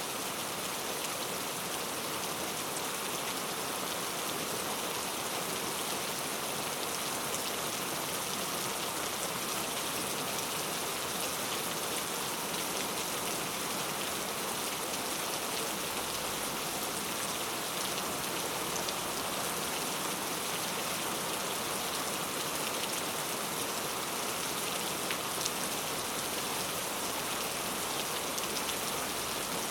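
Heavy rain falling steadily: a dense, even hiss of drops striking a surface, with faint individual drop ticks.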